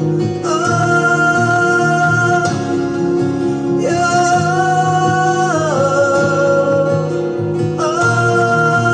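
A recorded song playing: a voice holding long notes that slide down at their ends, over steady instrumental backing.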